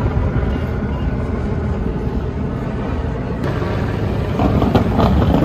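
Car engines running in the street, a steady low rumble that grows louder, with a steady engine note, in the last second or so.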